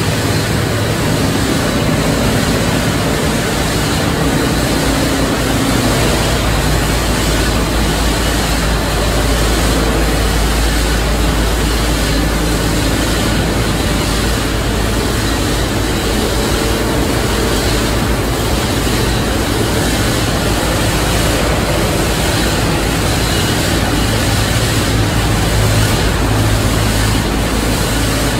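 Plastic film recycling line running: steady, loud machinery noise with a low hum.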